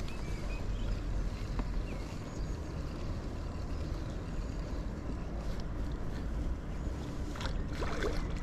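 Steady low rumble of wind on the microphone and water noise around a fishing kayak on the sea.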